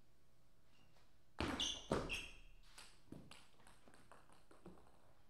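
Table tennis ball in a short rally: a few sharp pings off bat and table about a second and a half in. The ball then bounces away, each bounce quicker and fainter, until it comes to rest.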